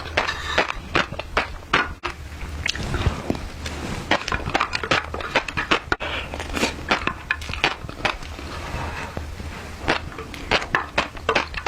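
Close-up eating sounds of fish roe: a dense, irregular run of sharp crackles and pops as the roe is chewed and burst.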